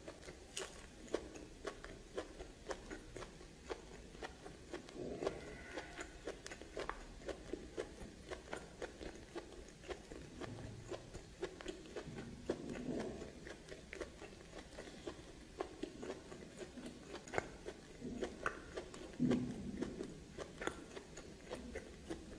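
Close-miked mouth sounds of eating steamed snake: steady chewing and biting, with sharp wet clicks and smacks several times a second.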